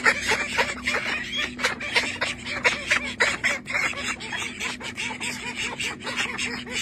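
A flock of birds calling together, many short overlapping calls repeated without a break.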